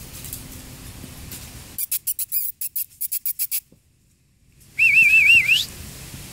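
A quick run of about a dozen sharp clicks, then a person whistling a warbling call that glides upward at the end, about five seconds in, calling the puppies.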